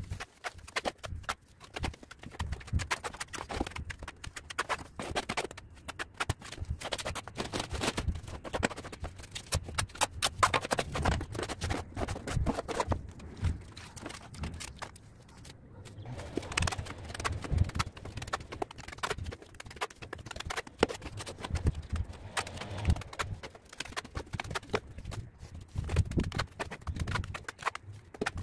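A mason's trowel scooping and spreading mortar on hollow clay bricks: a steady run of irregular knocks, taps and scrapes.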